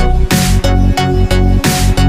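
Electronic background music with a heavy bass beat pulsing about three times a second and regular sharp drum hits.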